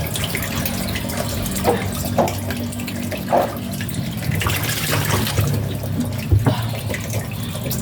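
Water running steadily from a tap, with a few short knocks.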